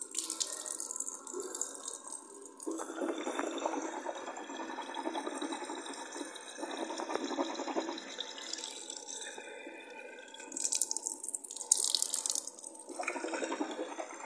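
Bathroom tap running into a sink while the mouth is rinsed, steadiest in the first half. A few short, sharp hissy noises come near the end.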